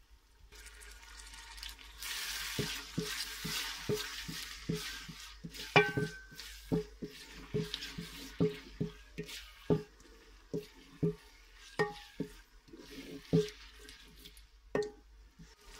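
Wooden spoon stirring onion-tomato masala frying in ghee in an aluminium pot: the masala sizzles, loudest in the first few seconds, while the spoon knocks against the pot about two to three times a second.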